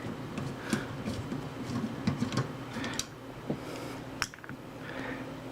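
Screwdriver working the screws of a CPU cooler fan: scattered light clicks and short scrapes at an irregular pace, with a sharper click about a second from the end.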